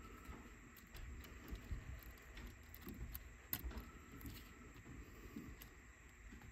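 Faint, scattered small clicks and light handling noise from tiny plastic and metal parts of a cassette Walkman being handled and fitted by hand. A sharper click comes about three and a half seconds in.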